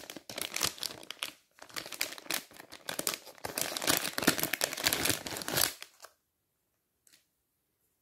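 Clear plastic packaging bag crinkling in the hands as it is opened and the cable is taken out. The crinkling goes on for about six seconds, with a short pause about a second and a half in.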